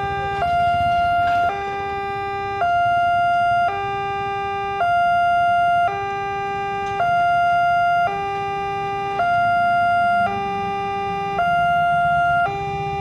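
Railway level-crossing automatic electronic siren, newly repaired, sounding its warning as a two-tone alternation: a high tone and a low tone switching back and forth about every second, the high tone the louder.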